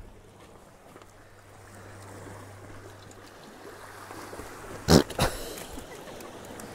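Sea washing gently over rocks, then about five seconds in two sharp slaps in quick succession as a garfish swung in on the line lands on the wet rock.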